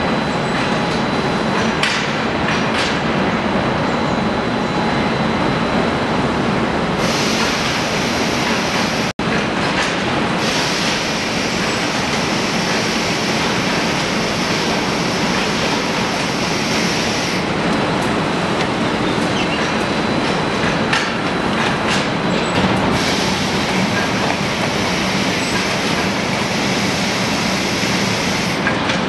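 Steady mechanical clatter and hum of an automatic ceramic-tile packing line running, from its conveyors, rollers and packing machine, with a momentary cut-out about nine seconds in.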